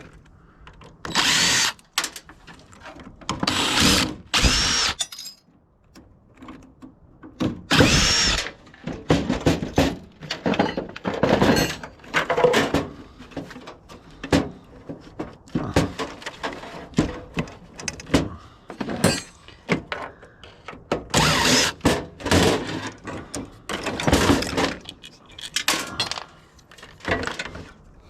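Power drill run in repeated short bursts, its motor whine rising and falling as it spins up and stops, as fasteners are driven out during a teardown.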